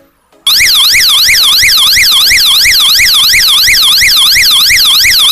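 Loud electronic siren from a DIY fire alarm's 12-volt horn, warbling rapidly up and down about three times a second. It starts abruptly about half a second in. The alarm sounds when flame heats the fluorescent-tube starter used as its sensor.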